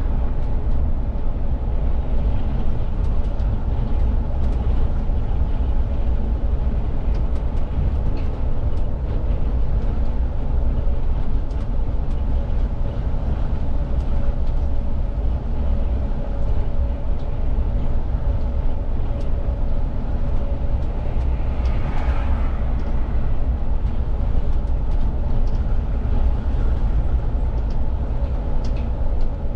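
Cab-interior sound of a VDL city bus driving at steady speed: a constant low rumble of drivetrain and road noise with a steady whine, light rattles and ticks from the cab, and a brief swell a little past the middle.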